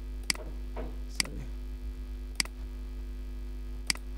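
Four sharp computer mouse clicks, unevenly spaced about a second apart, over a steady low electrical hum.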